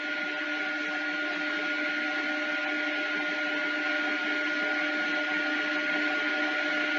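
Steady hiss and electrical hum on an open phone line while the call is on hold, with a few constant faint tones and no voices.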